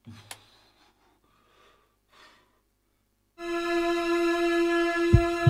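A few faint rustles and a click, then about three and a half seconds in a steady, sustained musical drone from the film score starts suddenly. A single deep thump comes near the end.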